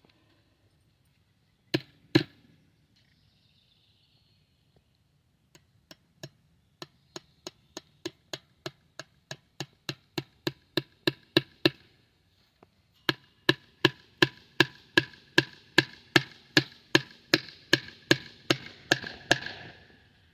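Rhythmic hammer strikes with a ringing after each, about three a second, in two runs that grow louder, the second run the loudest; two sharp knocks come first, about two seconds in.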